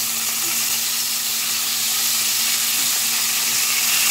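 Pork chops sizzling steadily as they fry in oil in a stainless steel pan, an even crackling hiss.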